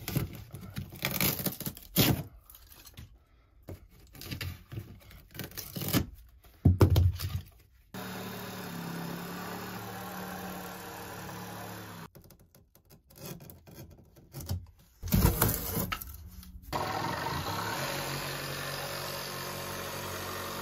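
Water-damaged plywood wall paneling being pried and torn away, with irregular cracks and scrapes. A compact reciprocating saw then runs steadily for a few seconds from about 8 seconds in, and again from about 17 seconds in, cutting through the panel, with more prying and cracking in between.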